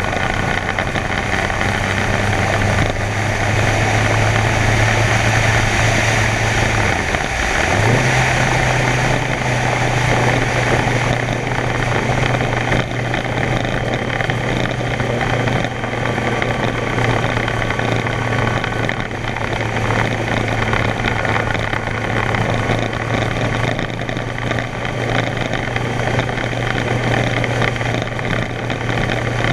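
Kawasaki Concours 14's inline-four engine running steadily at cruising speed, heard with wind rush from riding. About seven seconds in, the engine note dips sharply and then holds at a higher pitch.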